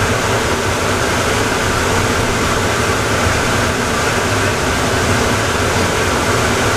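Atlanta airport Plane Train, an automated people mover, running with a steady rumble and a low hum.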